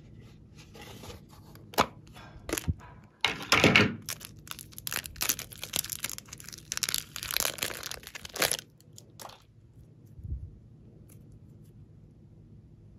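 Crinkling and tearing of thin plastic wrapping as a stick of yellow modelling clay is pulled out of it: a few sharp clicks, then several seconds of dense crackling that stops about two-thirds of the way through, followed by soft handling of the clay with a single dull thump.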